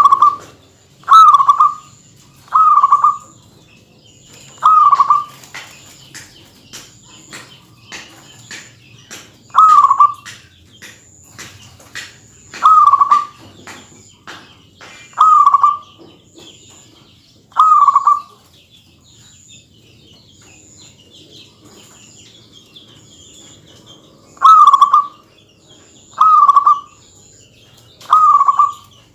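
Zebra dove (perkutut) cooing: short, loud, falling coos repeated about every two to three seconds, with a pause of several seconds about two-thirds of the way through. Faint ticks sound between the coos.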